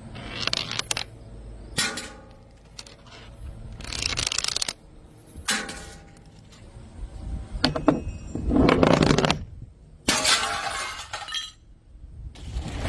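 Glass bottles being smashed one after another, each crash followed by shards clinking and rattling. About six breaks, the longest and loudest in the second half.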